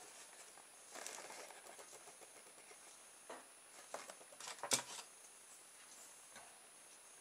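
Fingers handling a small homemade electric motor's magnets, spoke axle and wire: light rustling about a second in, then a few small clicks and taps, the loudest just under five seconds in.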